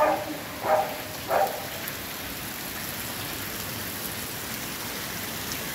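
Heavy rain falling in a steady hiss on a flooded street. Three short calls stand out over it in the first second and a half.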